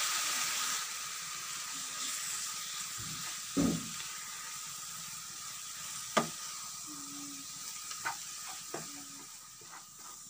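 Vegetable mixture with coconut milk sizzling steadily in a frying pan while a wooden spatula stirs it. The spatula knocks against the pan a few times, most loudly about three and a half seconds in.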